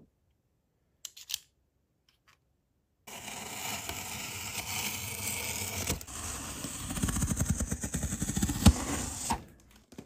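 Utility knife blade slicing through packing tape along a cardboard box seam: a steady close-up scraping from about three seconds in that turns into a quick run of rough strokes near the end and stops abruptly. A brief click about a second in.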